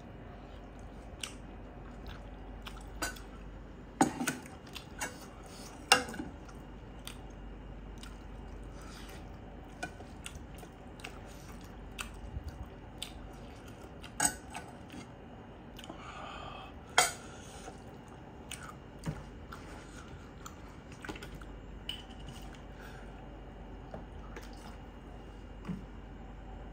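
Close-up eating sounds: chewing a bite of buffalo heart meat, with sharp clicks and taps now and then as fingers mix rice on a steel plate.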